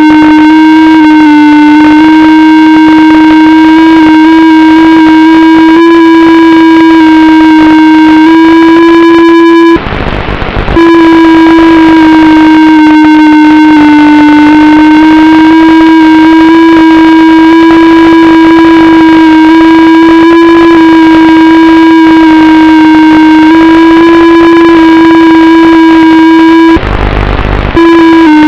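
The FPV aircraft's electric motors give a loud, steady whine whose pitch wanders slightly up and down. Twice it briefly drops out into about a second of noisy rumble.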